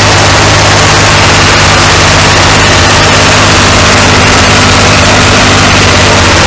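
Leyland 245 tractor's three-cylinder diesel engine running steadily under way, heard loud from inside the cab.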